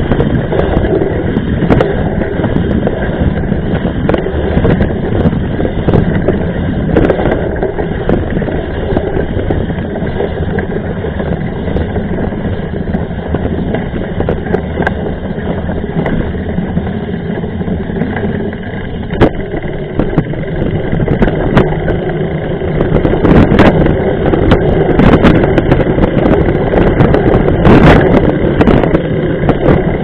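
Mountain bike rolling over a gravel dirt road, heard close to the knobby front tyre, with wind on the microphone. Scattered sharp knocks and clicks from the rough surface come more often and louder in the last third.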